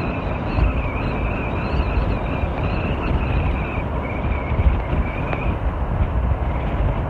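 Wind buffeting the microphone of a camera moving at riding speed on a road, a steady low rumble, with a thin, wavering high whine over it that drops out a little past halfway.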